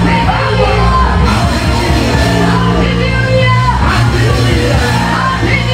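Loud worship music with held bass notes and singing, with voices shouting over it.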